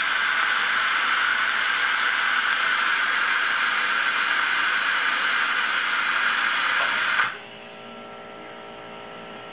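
Compressed air hissing steadily from a blow-gun nozzle set to about 30 PSI, bleeding the tanks down. It cuts off sharply about seven seconds in, leaving the quiet, steady hum of the Sil-Air silent air compressor, which has kicked back on as the tank pressure dropped.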